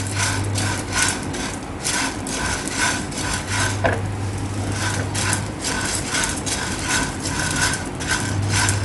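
Dry sabudana (tapioca pearls) being stirred and turned with a spatula in a nonstick pan, the blade scraping the pan and the dry pearls rattling, about two strokes a second. The pearls are dry-roasting with no oil.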